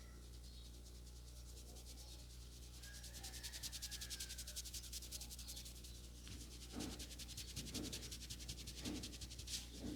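Hands rubbing over hair and scalp during a head massage: a quick, fast rubbing that settles about six seconds in into slower strokes, about one a second.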